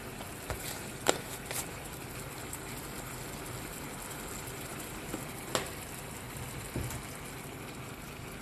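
Chopped chicken frying in a pan with spices, a steady sizzle, with a few sharp clicks of a utensil against the pan.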